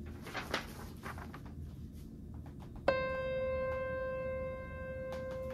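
Paper rustling as a printed sheet is handled. About three seconds in, a single held musical note starts sharply and rings on steadily.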